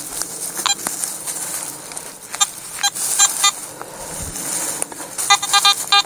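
Garrett AT Pro metal detector giving its target tone as the coil passes over a dug hole: short pitched beeps in scattered groups, then a quick run of beeps near the end. The signal marks a small non-ferrous target in the soil.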